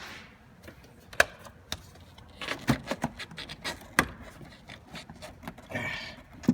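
Sharp plastic clicks and knocks as the air filter box on a Nissan Altima is unclipped and its lid pried open, a scattered run of snaps with a short rustle near the end.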